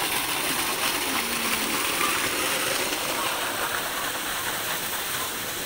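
Water gushing from a large pipe outlet and splashing into a concrete pool: a steady rushing.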